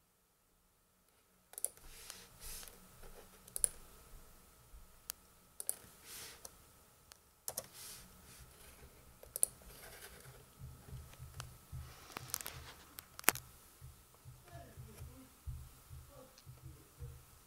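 Irregular sharp clicks and taps of a laptop's keys and touchpad, starting about a second and a half in, with a few louder single clicks among them. Dull low bumps join in during the second half.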